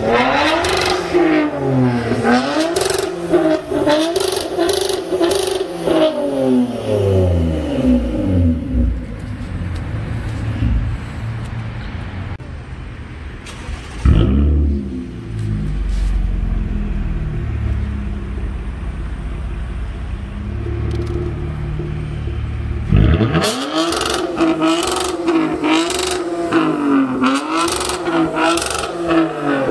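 Toyota Camry with its muffler and both resonators deleted, revved in quick repeated blips, the pitch climbing and falling about once a second. About a third of the way in the revs fall away to a deep, low rumble at idle, broken halfway by a sudden loud burst, and near the end the engine is revved in quick blips again.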